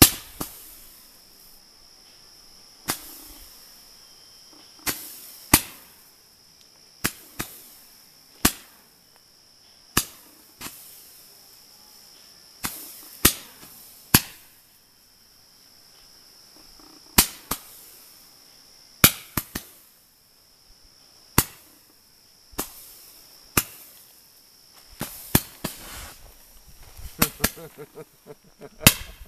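Fireworks launching shots one after another: about twenty sharp pops at uneven gaps of one to two seconds, coming faster with crackling near the end. Crickets chirp steadily underneath.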